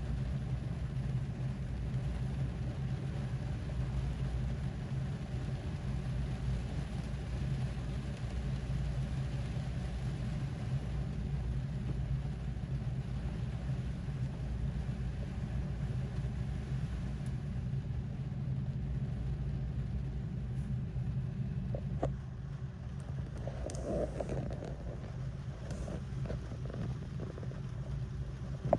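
Rain on a car's body heard from inside the cabin, over a steady low hum from the car. The rain thins after about 17 seconds; a single knock comes about 22 seconds in, followed by a few scattered ticks.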